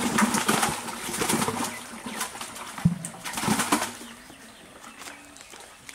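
A hooked fish splashing at the pond surface in two crackling bursts, the second starting about three seconds in just after a sharp thump.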